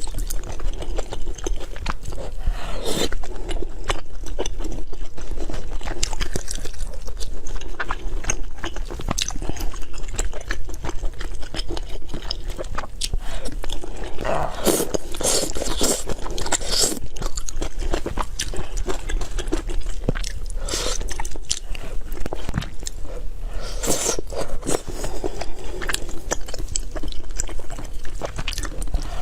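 A person chewing and biting food close to the microphone: a dense run of short mouth and food clicks, with louder bursts of biting about three seconds in, in the middle, and again about three-quarters of the way through.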